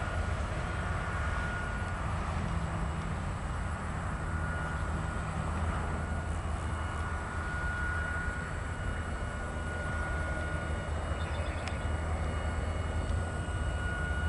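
Twin rear-engine jet airliner at takeoff thrust as it rolls and climbs away: a steady low roar with a thin, high, steady engine whine over it.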